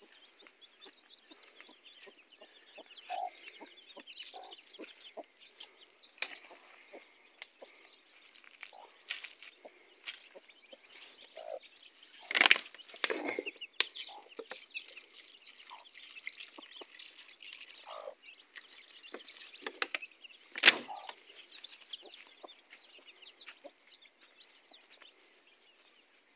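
Domestic chickens clucking in short scattered calls, with a few louder calls about twelve to thirteen seconds in and again near twenty-one seconds.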